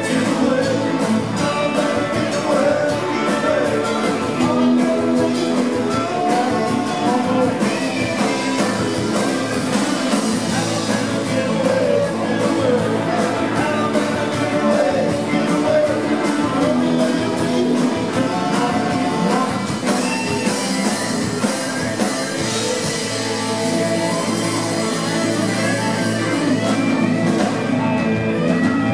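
Live rock band playing: electric guitars, bass guitar and drums, with a man singing lead vocals.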